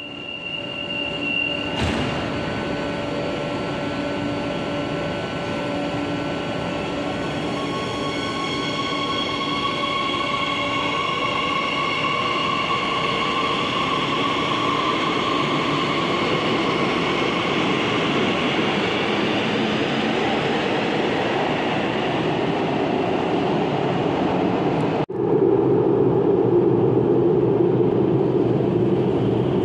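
CAF S8000 metro train departing: a steady warning tone, then the doors shut with a knock about two seconds in, and the train pulls out with its motors whining, rising slowly in pitch as it gathers speed, over the noise of the cars rolling past. After an abrupt cut near the end, a louder, lower rumble of a train coming through the tunnel.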